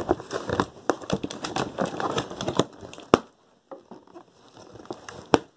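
Cardboard toy box and its plastic packaging being handled and opened by hand: crinkling and rustling with many sharp clicks, busiest for about the first three seconds, then quieter with a single sharp snap near the end.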